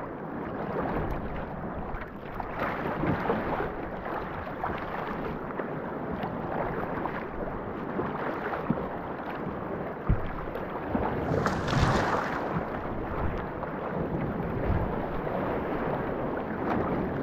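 Sea kayak paddled through choppy sea: paddle strokes and water splashing and sloshing against the hull, with wind buffeting the microphone. A short sharp knock comes about ten seconds in, and a louder splash a moment later.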